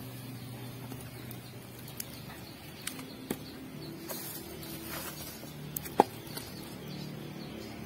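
Wood and charcoal fire crackling under fish grilling in a wire basket: scattered sharp pops, the loudest about six seconds in, over a steady low hum.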